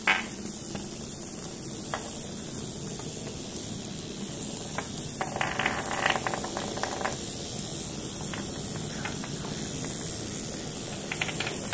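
Hexbug Nano vibrating bug toys buzzing and rattling on a tabletop, a steady hissing chatter, with a sharp click right at the start and a spell of rapid clicking about five to seven seconds in as more are set down.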